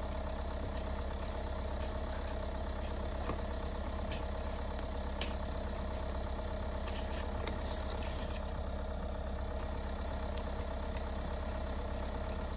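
Diesel SUV engine idling steadily, warming up after a cold start in freezing weather, with a few short scrapes and knocks of snow shovels about five and seven to eight seconds in.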